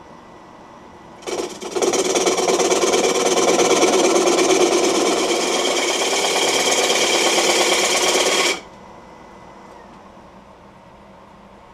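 A gouge cutting the outside of a spinning Russian olive bowl on a wood lathe. It makes a loud, rough, fast-chattering cutting noise that starts about a second in and stops suddenly about seven seconds later. Under it, the Laguna lathe runs faintly and steadily.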